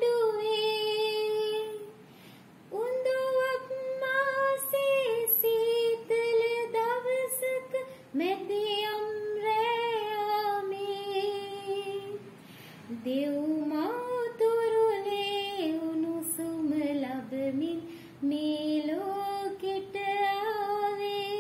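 A woman singing a slow Sinhala Christmas song about Jesus' birth in Bethlehem, unaccompanied, in long held notes with short pauses between phrases.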